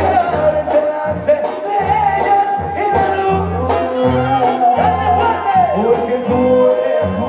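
Live Mexican banda music played by a large brass band, with a singer, heard loud from the crowd. A low bass line in short repeated notes runs under the brass melody.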